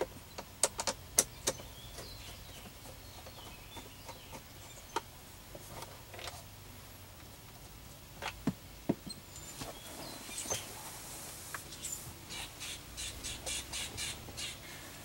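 Scattered sharp clicks and taps, then a run of quick faint clicks over the last few seconds: a screwdriver and hands working the Phillips screws out of a steering column's plastic cover.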